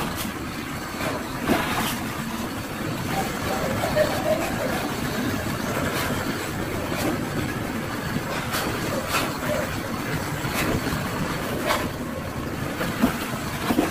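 Gas-canister blowtorch burning with a steady hiss as its flame shrinks heat-shrink tubing onto a high-voltage cable joint. A few sharp clicks are scattered through it.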